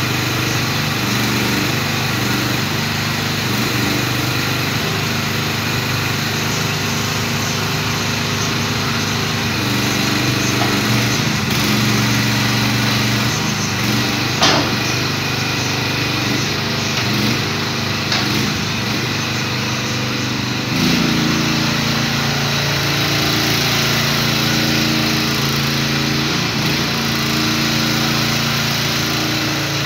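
The 13.5 hp Briggs & Stratton engine of a 2023 MIVA VA13C mini excavator running steadily at rest. Its note steps up slightly about two-thirds of the way through, and there is a single sharp click about halfway.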